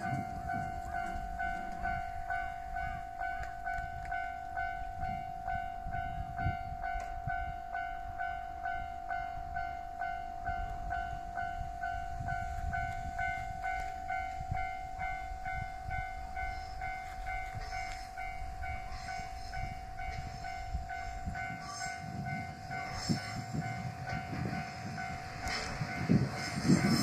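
Japanese level-crossing alarm bell ringing: a steady, evenly repeating electronic ding over low rumbling. Near the end the bell stops and a louder rumble and clatter comes in.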